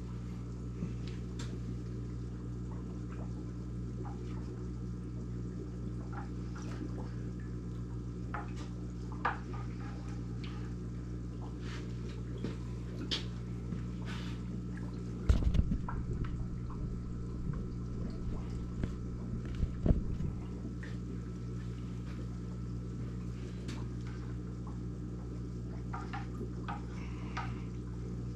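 Home aquarium's water trickling and dripping over a steady low hum from its running pump or filter, with scattered small ticks and a couple of low thumps about halfway through.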